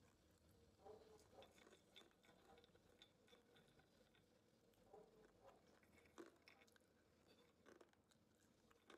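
Faint crunching and chewing of crispy fried green peas and cashew nuts, with a scattering of short, sharper crunches, the sharpest about six seconds in.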